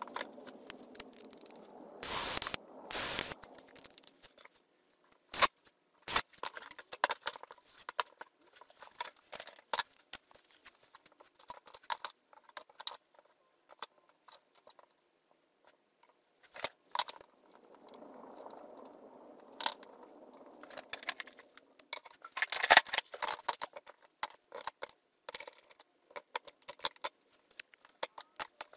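Cordless drill driving screws into a plywood rack in two short bursts near the start, then scattered clicks, clinks and rattles of metal pliers and cutters being handled and hung on the wooden rack, with a cluster of louder clinks late on.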